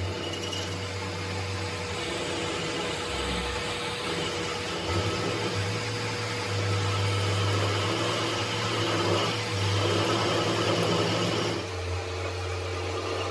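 A workshop machine running steadily with a constant motor hum. A rougher, hissing working noise builds from about two seconds in and drops away about a second and a half before the end.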